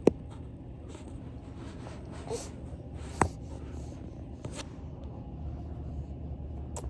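Quiet room tone with a steady low hum, broken by a few faint scattered clicks and knocks, the sharpest about three seconds in.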